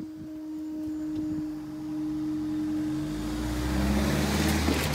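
Level crossing barrier's hydraulic power unit humming steadily as the barriers rise. From about three seconds in, a car's engine rumble builds as it drives over the crossing, and a sharp click comes at the very end.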